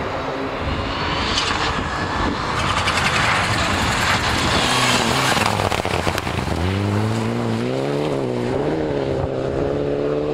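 Rally car at speed on a stage: a loud rush of engine, tyre and gravel noise, then about two thirds of the way in a clear engine note that rises and wavers with the revs and keeps climbing as the car comes on.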